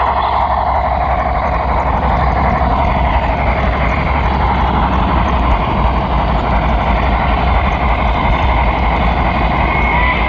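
HO scale flatcar's wheels rolling steadily along model railroad track, heard loud and close through a camera riding on the car, with a steady low hum as a locomotive pushes it.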